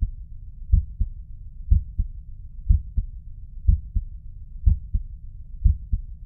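Human heart sounds heard through a stethoscope, a steady lub-dub at about one beat a second. Each beat is a lower, heavier first heart sound followed about a quarter second later by a sharper, higher second heart sound, over a faint low rumble.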